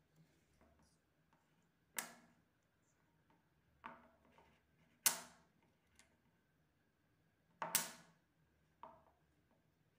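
Small magnet balls snapping together with sharp metallic clicks, five in all with gaps of a second or more, the loudest about five seconds in and a quick double click near the end.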